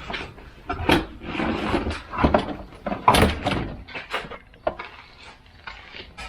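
Irregular knocks, bumps and rustling of household things being moved and set down, about half a dozen sharp knocks.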